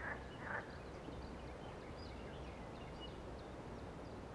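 Faint distant birdsong: scattered short, high chirps over a quiet, even outdoor background.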